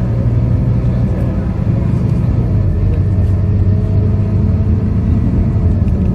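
Scania K230UB bus's five-cylinder diesel engine running steadily at road speed, mixed with road and tyre noise, heard from inside the passenger cabin.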